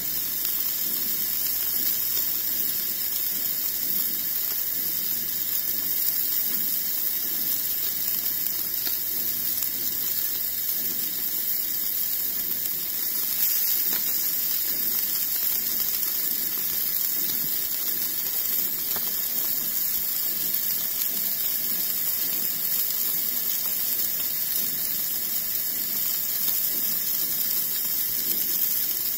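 Burger patty sizzling in a frying pan over the steady hiss of a lit Coleman Dual Fuel 424 camp stove burner.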